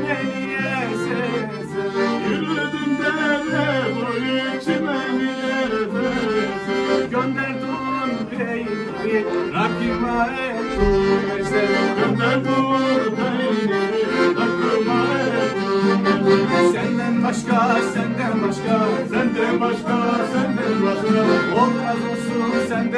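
Two piano accordions playing a lively instrumental passage of a Black Sea (Karadeniz) folk tune together.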